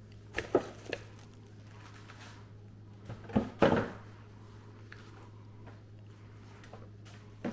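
Short knocks and rustles of handling, in a few clusters: a couple of knocks just after the start, a louder cluster a little past the middle, and one more knock at the very end. They sit over a steady low hum.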